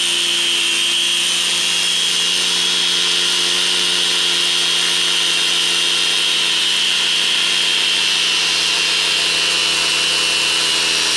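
Angle grinder motor running steadily at full speed with a high whine, driving a blade inside a plastic bucket that grinds dry rice husks into powder.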